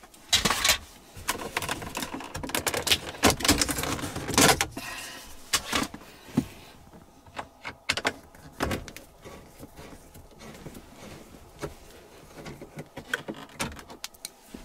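Plastic dash trim bezel of a Toyota T100 being pried and pulled off: a quick run of clicks, snaps and rattles over the first five seconds, then scattered lighter clicks as hands work at the exposed radios.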